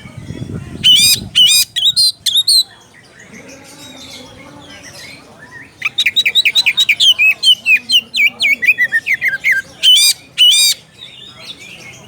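Oriental magpie-robin (kacer) singing a challenge song to call out a rival: two bouts of rapid, loud, high whistled notes, the first about a second in and the second from about six seconds until near the end.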